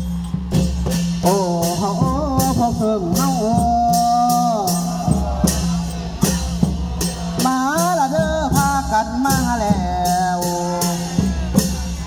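Live Isan folk music: a sung melody in two phrases over a steady low drone, with long drums and a sharp percussion beat about twice a second.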